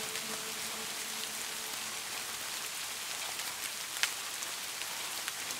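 Steady rain with individual drops ticking close by, one louder drop about four seconds in.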